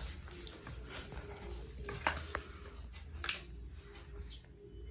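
Faint handling noise of thin wire being twisted onto the terminals of a plastic battery firing gun: a few small clicks and rustles over a steady low hum.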